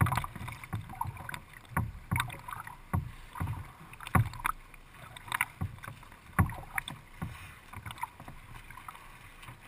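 Kayak paddling on open water: paddle blades splashing and water slapping against the plastic hull close by, in irregular sharp splashes and low knocks about every half second to second.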